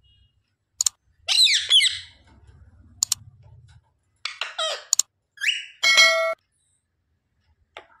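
Pet parakeet calling: short chattering calls that fall in pitch, about a second in and again around four seconds, a held screech around six seconds, and a few sharp clicks between them.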